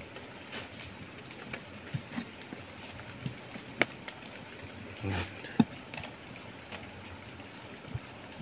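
Soil being scraped and cleared by hand from around a buried object: scattered small clicks and knocks of dirt and pebbles, with a sharper knock just before four seconds in and a short rustle followed by a knock about five seconds in.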